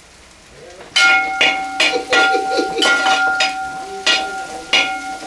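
Steel spoon stirring frying onions in a stainless steel pot, knocking against the pot about two or three times a second so that the pot rings with a steady metallic tone. The knocking starts about a second in.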